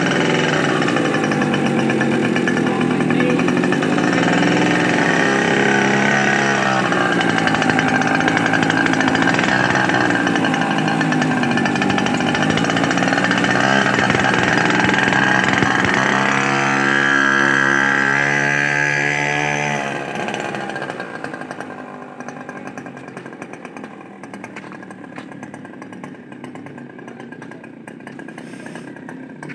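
Mini pocket bike's small engine running as it is ridden, its pitch rising and falling with the throttle, then fading to a quieter, more distant drone as the bike moves off about twenty seconds in.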